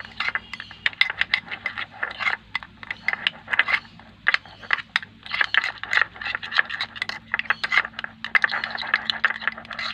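Metal spoon stirring a thick yogurt and spice paste in a glass bowl, rapidly clicking and scraping against the glass several times a second.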